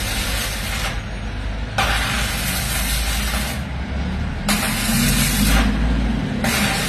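Electric arc welding crackling and hissing in three short runs of about one to two seconds each, with brief pauses between them, over a steady low hum.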